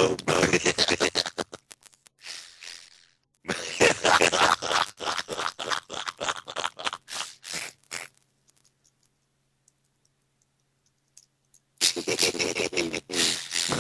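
A caller's voice over a Skype call garbled by a digital glitch into scratchy, robotic-sounding noise that comes in choppy bursts. It breaks off for about four seconds past the middle, then starts again.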